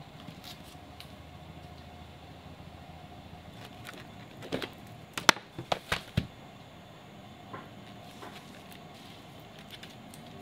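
Trays of acrylic gouache paint tubes being handled and lifted out of their box, with a quick cluster of sharp clicks and knocks about halfway through as a tray is moved and set down.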